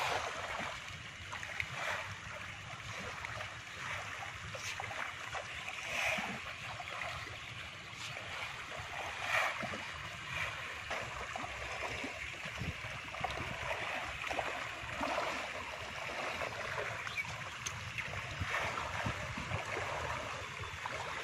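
Outdoor wind noise on the microphone: a steady rushing hiss and rumble, with scattered faint small splashes of water.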